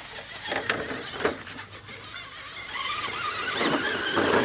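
HPI Venture FJ Cruiser RC crawler's electric motor and geartrain whining as its Super Swamper tires churn through muddy water. It grows louder toward the end as the truck pushes deeper in, with a few sharp clicks in the first second and a half.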